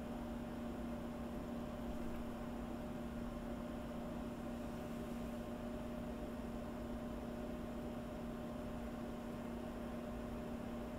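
A steady two-pitch hum over an even hiss, unchanging throughout; no bird calls stand out.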